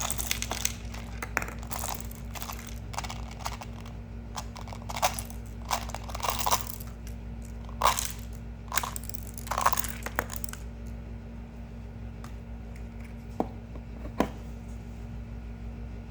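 Close-up ASMR handling noises: a dense run of small clicks, rattles and crunchy scrapes for about ten seconds, then only a couple of isolated clicks.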